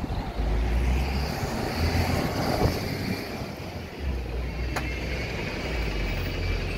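Single-decker London bus running close by as it pulls in at the stop: a low engine rumble with road noise.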